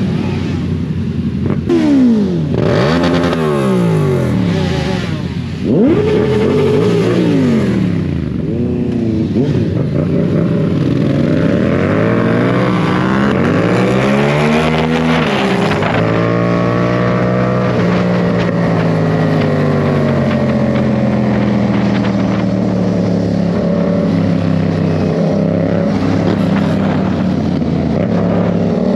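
Motorcycle engine with an aftermarket exhaust, revved hard several times in the first few seconds, its pitch shooting up and dropping back each time. It then climbs once more and settles into a steady, slowly wavering drone at cruising speed.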